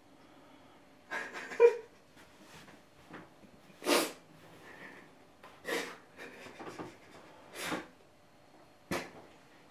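A man's shaky, sharp breaths and sniffs while crying, about five of them a second or two apart, one catching briefly in his voice like a sob.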